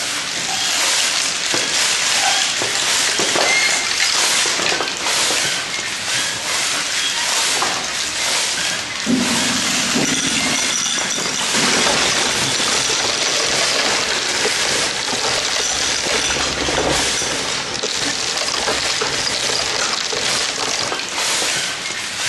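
Hundreds of steel balls rolling and clattering together over the wooden and clear plastic trays of a kinetic sculpture: a dense, continuous rattle made of countless small clicks.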